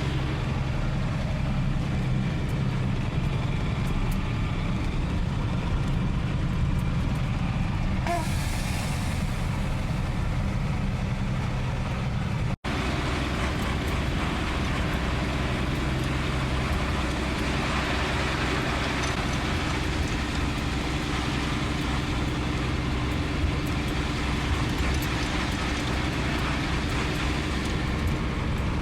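Unimog truck's diesel engine running steadily while driving, with a brief cut in the sound about twelve seconds in.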